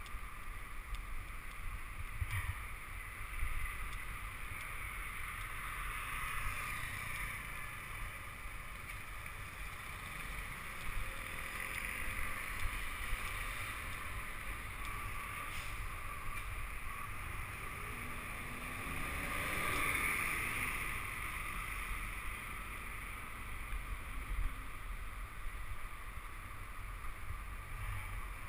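Steady wind rush and road rumble picked up by a camera on a moving bicycle. A motor vehicle passes about twenty seconds in, its sound swelling and fading.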